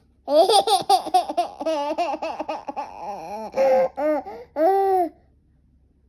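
Eight-month-old baby laughing hard in a long, unbroken run of high giggles and squeals that stops about five seconds in.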